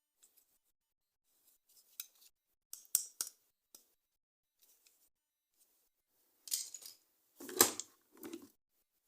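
Scissors snipping through plastic toy packaging: scattered small clicks and snips, then a louder run of crackly snips and rustles about six and a half to eight and a half seconds in.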